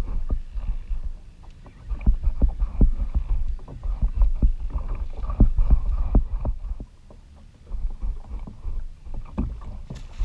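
Choppy seawater slapping and splashing against a plastic kayak hull, with wind buffeting the camera microphone as a low rumble and irregular knocks from the hull. The rumble eases for about a second near the middle.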